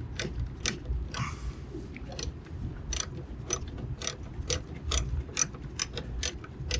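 Socket ratchet wrench clicking about twice a second as it is swung back and forth to back out a small Torx screw, with a brief rustle about a second in.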